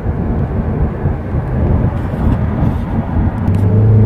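Road and engine noise inside a moving taxi's cabin: a loud low rumble. A steady low hum joins it near the end.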